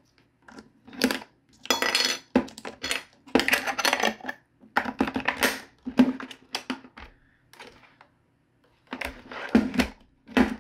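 Plastic clock radio case being wiped and handled on a wooden table: cloth rubbing over the ridged plastic, with irregular knocks and clatters as the unit is gripped and shifted.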